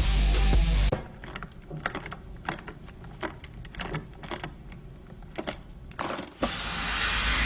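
Typing on a computer keyboard: irregular, quick key clicks for several seconds, after music cuts off about a second in. Near the end a rising rush of noise comes in.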